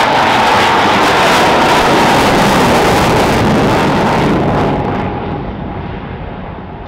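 Belgian Air Force F-16 Fighting Falcon's jet engine in afterburner: a loud, steady roar as the fighter climbs steeply. About five seconds in the high hiss drops away and the roar fades as the jet pulls away.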